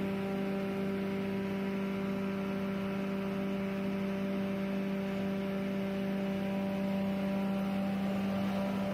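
Rice husk grinder running at steady speed: a constant machine drone with a strong low hum.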